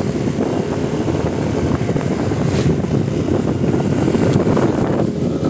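Wind rumbling on the microphone over a running vehicle engine and road noise while on the move.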